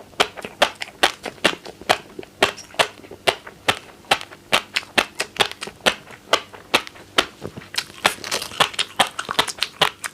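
Fish roe popping crisply while being chewed close to the microphone: a fast, irregular run of sharp pops, several a second.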